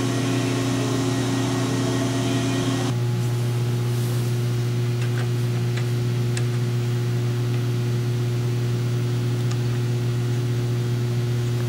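Steady hum of running woodworking machinery, with a strong low drone and a few steady tones. An even hiss above it drops away abruptly about three seconds in, leaving the hum and a few faint clicks.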